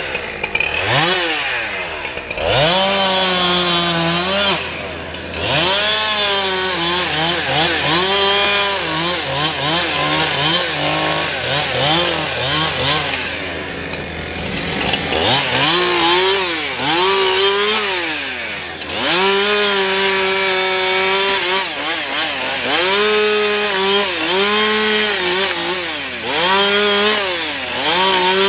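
Two-stroke chainsaw revved up to full throttle and let back down over and over as it cuts into a tree trunk, each burst held for a second to a few seconds, with a short lull about halfway through. A steady low hum runs underneath.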